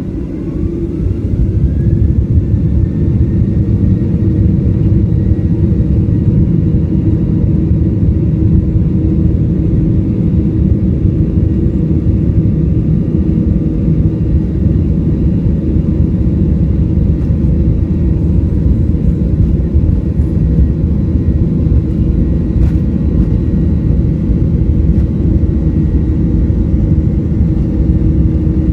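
Boeing 737-800's CFM56-7B jet engines spooling up to takeoff thrust, heard from inside the cabin. A whine rises in pitch and the noise grows over the first two seconds, then a loud steady rumble with a held whine continues as the plane rolls down the runway.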